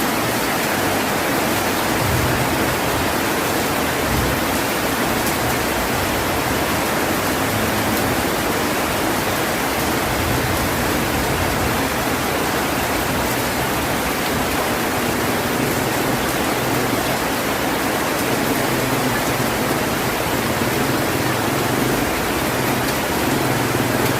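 Heavy rain falling steadily: an even, unbroken rush of noise.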